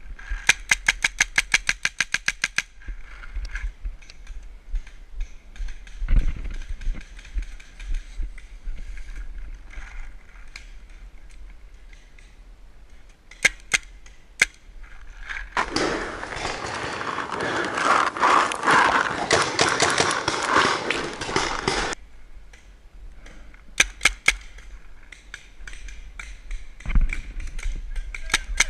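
Paintball marker firing a rapid string of shots, about eight a second, for a couple of seconds, then a few single shots. Midway there is a stretch of several seconds of steady, loud noise.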